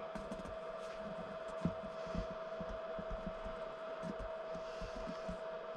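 Steady faint electrical hum, with soft, irregular low knocks from handling.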